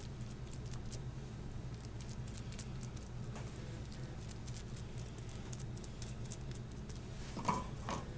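Hands packing rice pilaf stuffing into the pocket of a raw chicken breast: soft, sticky squishing and light crackles, over a steady low hum. A brief louder sound comes about seven and a half seconds in.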